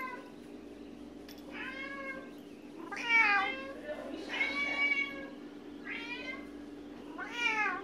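Bengal cat meowing five times, short calls that rise and fall in pitch, the middle one the longest at about a second.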